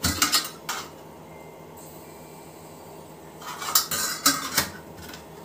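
Stainless steel pots, lids and containers clanking and clattering as they are handled, in a burst at the start and again about three and a half seconds in.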